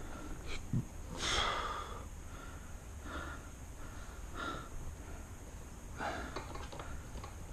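A person breathing, four or five breaths about a second and a half apart, the loudest about a second in, with a few light clicks about six seconds in.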